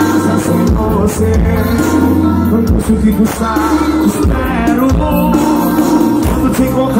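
Live forró band playing loudly over a concert sound system, with a lead singer's voice over a steady bass line and beat.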